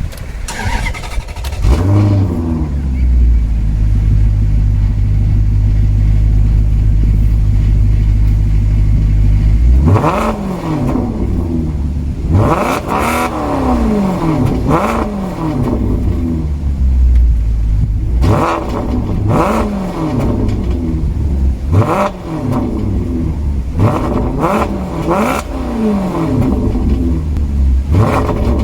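Maserati Quattroporte GTS's 4.7-litre V8 comes on about two seconds in and idles steadily for about eight seconds. It is then revved again and again in short blips, each rising and falling quickly.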